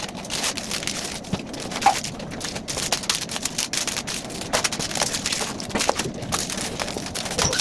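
Pantry items and packaging being handled and moved about: a dense, irregular run of clicks and rustling.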